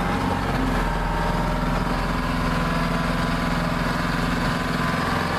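Large engine idling steadily, a constant low hum that holds the same pitch throughout.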